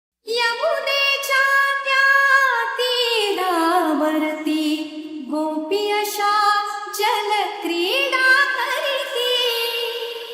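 A solo female voice singing a slow, sliding, ornamented vocal opening without drums or beat, with long held notes and a final held note fading away near the end.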